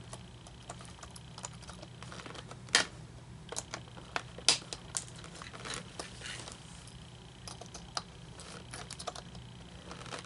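Irregular small clicks and scrapes of a flathead screwdriver prying at plastic parts inside an animatronic figure's hip gearbox, over a faint steady hum.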